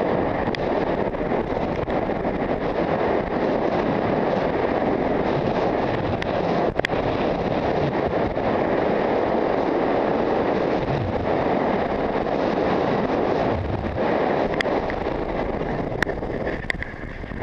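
Wind rushing over the microphone of a downhill skier, mixed with the steady scrape of skis over snow. A few sharp clicks, one about seven seconds in and several near the end.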